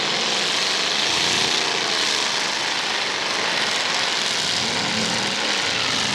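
Several full-size demolition derby cars' engines running and revving at once, a dense steady din with engine pitches rising and falling over one another.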